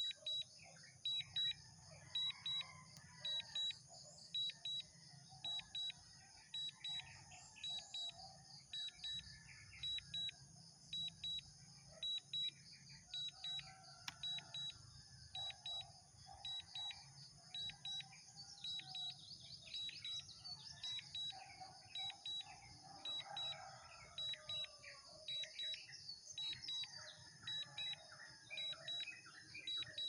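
Short, high double beeps repeating about once a second: the DJI Mini 2 controller's alert while the drone flies itself home on Return-to-Home. Birds chirp faintly underneath.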